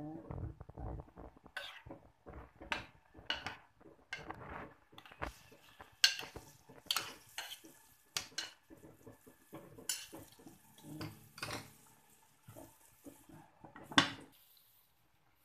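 Metal ladle clinking and scraping against a clay pot while stirring simmering soup, a string of irregular knocks and clicks. Near the end the ceramic lid is set down on the pot with a sharp clack.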